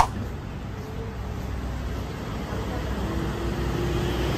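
Outdoor street traffic noise: a steady low rumble of road vehicles, with a faint engine hum joining about three seconds in. A short sharp click at the very start.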